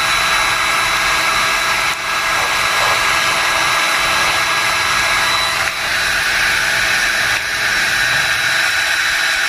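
Electric drill driving a drill pump, running steadily with a high whine as it pumps antifreeze through a boat air conditioner's raw-water lines to winterize it. Its tone shifts slightly about six seconds in.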